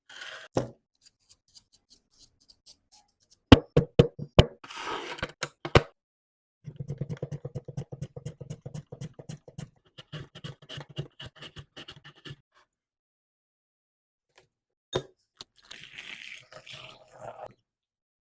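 Kitchen preparation sounds: several sharp knocks, then a few seconds of fast, even strokes like a knife chopping on a cutting board, and a last knock with some rustling near the end.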